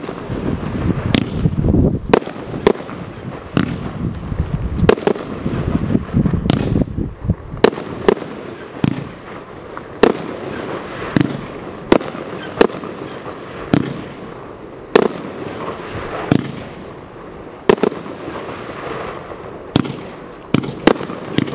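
Consumer fireworks cake firing aerial shots in a steady run, with sharp bangs of the shells bursting about once a second. A denser low rumble lies under the first few seconds.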